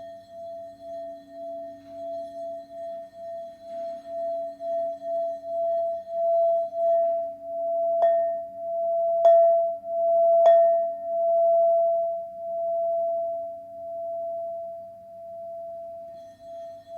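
Crystal alchemy singing bowl sung around the rim, one clear steady tone that pulses and swells louder towards the middle, struck sharply three times in quick succession about halfway through, then easing off.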